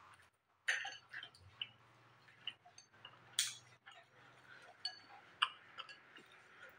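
Chopsticks clinking against a ceramic noodle bowl while eating: a series of scattered light clinks, the loudest about three and a half seconds in.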